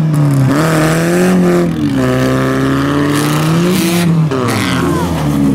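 Autocross car engines revving hard, the pitch dropping and climbing again a few times, as two cars that have collided on a dirt track push apart and pull away.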